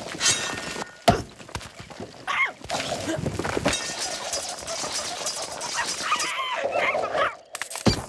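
Cartoon sound effects: a sharp crash-like hit about a second in and another near the end, between them busy effects and the bird character's wavering vocal noises.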